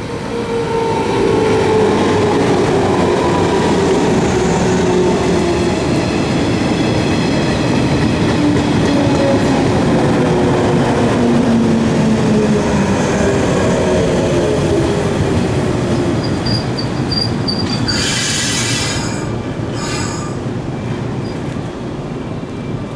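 JR 115-series electric train pulling into a station: wheels and running gear rumbling on the rails while the traction motors' whine falls steadily in pitch as it brakes. A thin high squeal comes near the end as it stops, followed by two short, loud hisses.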